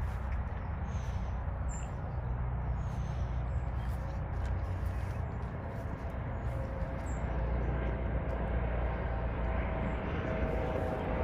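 Steady low rumble of outdoor background noise, with a faint hum coming in near the end.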